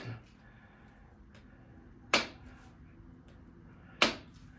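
Chiropractic adjusting instrument firing twice, a sharp click about two seconds in and another about four seconds in, each a quick thrust delivering an adjustment to the back.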